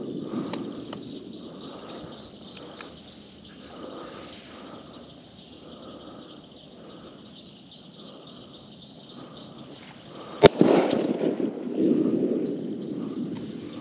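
A single rifle shot about ten and a half seconds in, fired at hogs in the field, followed by about two seconds of low rushing noise. Night insects trill steadily at a high pitch throughout.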